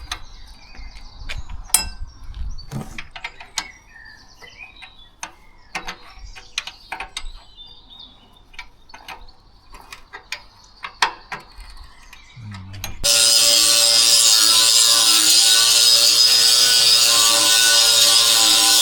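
Irregular metallic clicks and knocks from hand tools working on the tiller gear. About thirteen seconds in, a power tool starts suddenly and runs loudly and steadily, its pitch wavering slightly.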